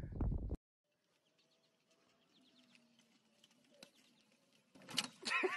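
Loud low noise that cuts off abruptly about half a second in, then a few seconds of faint outdoor background, then loud high-pitched yelling or whooping voices near the end.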